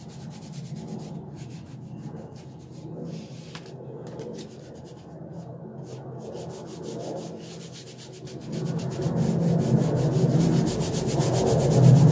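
Fingers and palm rubbing and smearing acrylic paint across textured mixed-media paper, a continuous rubbing that grows louder about eight seconds in.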